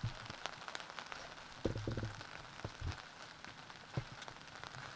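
Outdoor background noise: a steady crackling, rain-like hiss, with a few dull thumps about two seconds in and a sharp tap at about four seconds.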